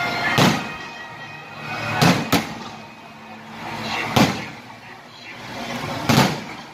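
Aerial fireworks bursting in the sky: five sharp bangs about two seconds apart, two of them close together. A hiss swells before each bang.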